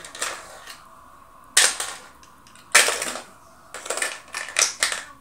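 Hard plastic toys clacking: two loud, sharp knocks a little over a second apart, then a quick run of smaller clicks and clatter.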